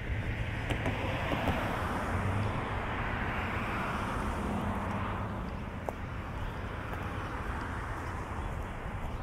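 A vehicle passing: a rushing sound that swells over the first second or so and fades after about five seconds, over a steady low rumble.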